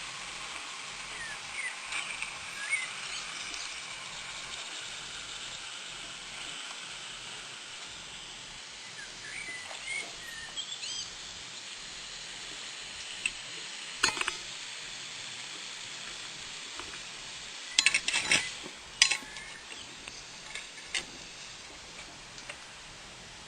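A few sharp metallic clinks and knocks over a steady hiss, the loudest cluster about three-quarters of the way through.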